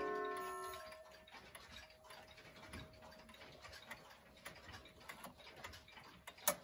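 Last notes of the Howard Miller Jennison wall clock's chime rods dying away, then the clock's mechanical movement ticking faintly while its minute hand is turned forward by hand. A single sharp click near the end.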